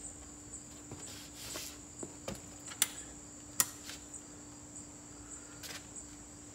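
Sharp clicks and knocks as the folding cart's metal frame and fittings are handled, the two loudest a little under a second apart near the middle. A steady high-pitched tone runs in the background.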